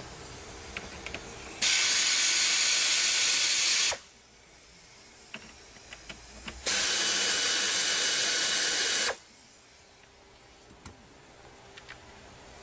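Power screwdriver or drill running in two steady whirring spells of about two seconds each, backing out trim screws, with small clicks of handling between them.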